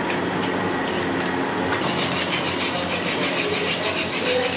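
A knife scraping and cutting a fish on a wooden chopping block, in rapid repeated strokes from about two seconds in, over a steady low hum and background noise.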